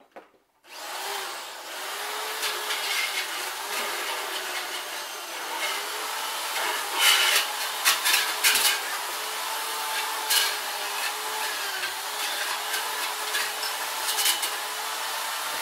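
An electric grinder switched on about a second in and running steadily with a wavering motor whine, a plastic disc (a scratched DVD) pressed against it, giving several louder, harsher scrapes partway through.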